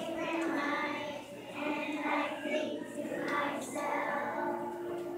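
A large choir of young children singing together.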